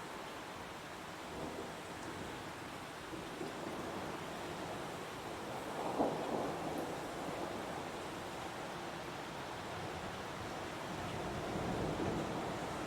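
Heavy rain falling in a forest as a steady rushing hiss that swells a little now and then, with one short louder burst about halfway through.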